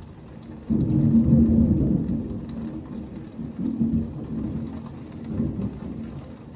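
Heavy rain falling steadily in a severe thunderstorm. A loud, low rumble of thunder breaks in suddenly about a second in and rolls on in several surges.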